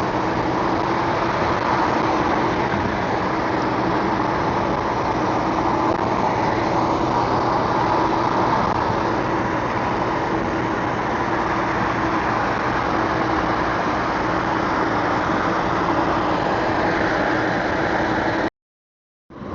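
Steady road and engine noise heard inside a moving car, with a low steady hum under it. The sound cuts out completely for under a second near the end.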